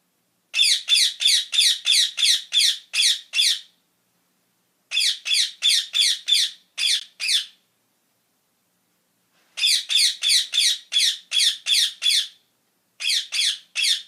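Rose-ringed parakeets calling: runs of short, harsh screeches that each fall in pitch, about three a second, in four bursts broken by pauses of a second or so.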